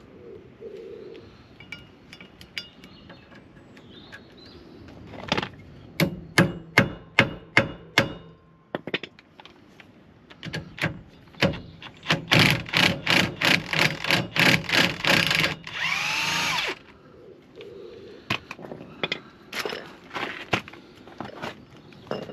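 Hammer blows on metal while seized, rusted bolts are worked loose: a run of about six sharp strikes, then a faster run of about four a second, then a brief squealing whir lasting about a second, followed by a few more scattered knocks.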